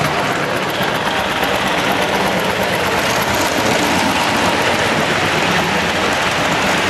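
Lionel-style O-gauge model freight train running past: a steady rumble of wheels on the track.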